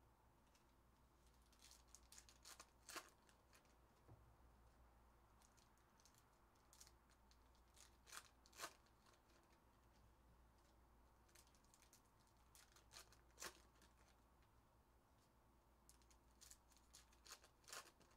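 Faint crisp rustling and clicking of foil trading-card packs and card stacks being handled, in a few short clusters of sharp ticks.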